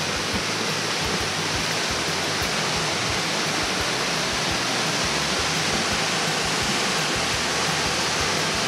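Steady rushing of a waterfall pouring down a rock face into a pool, heard close to its base.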